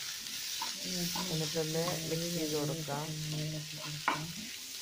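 Chopped vegetables sizzling in a frying pan while being stirred with a spatula.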